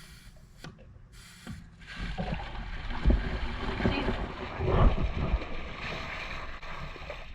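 Water rushing and splashing from a pressurized water main line that is being plugged, with a few knocks. The plug is not holding against the line pressure.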